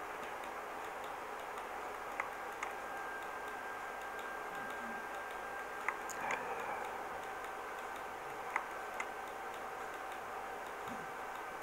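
A few faint, irregularly spaced computer-mouse clicks over a faint steady electrical whine.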